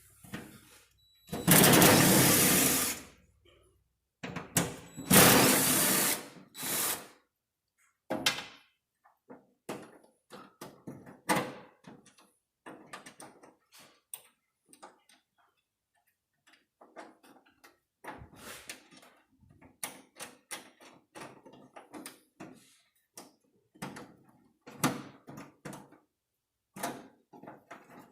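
Tailgate handle on a 2009 Ford Ranger being worked and wiggled in its opening in the tailgate: two loud bursts of noise, each about two seconds long, near the start, then scattered clicks and knocks. The handle's broken ear keeps catching and will not come out of the hole.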